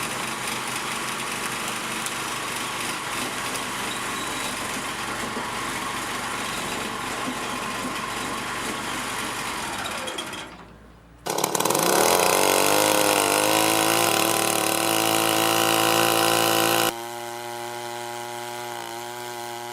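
Wood-processing machinery running through edited clips. Steady machine noise fades out about halfway through. A louder engine or motor then cuts in, its pitch rising as it runs under load. Near the end it drops abruptly to a quieter, steady hum.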